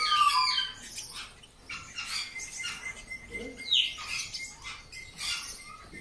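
Caged canaries chirping and calling in many short, high notes, with one falling call about four seconds in.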